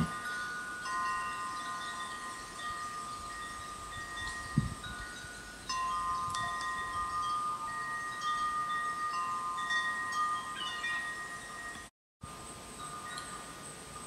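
Chime tones: several clear bell-like notes that overlap and hold, changing every second or two. There is one soft low thump about a third of the way in, and the sound cuts out completely for a moment near the end.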